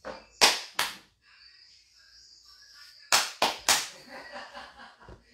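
Sharp hand slaps close to the microphone: two about half a second apart near the start, then three in quick succession about three seconds in.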